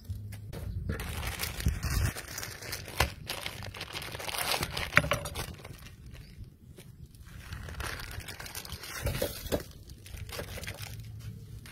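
Plastic instant-noodle packets and seasoning sachets crinkling and tearing as they are handled, opened and squeezed out, with many small sharp crackles.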